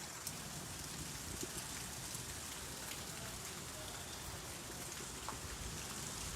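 Steady rain falling, with scattered ticks of individual drops.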